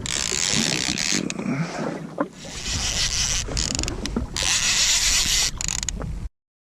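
Wind and sea water rushing and splashing around a drifting jet ski, heard on the open microphone in surging gusts with a few small knocks, cutting off abruptly near the end.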